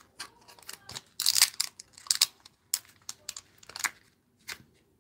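Clear rubber-free stamps being peeled off their plastic carrier sheet and the sheet being handled: irregular crinkling and crackling, loudest about a second in.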